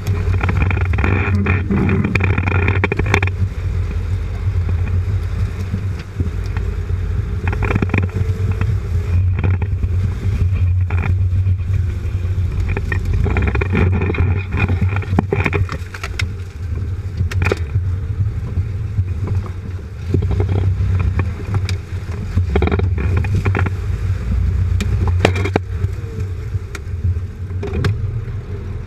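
Jeep Cherokee XJ crawling off-road, heard from a camera mounted underneath: a steady low engine and drivetrain drone, with frequent knocks, clatter and crunching as the tyres roll over leaves and sticks.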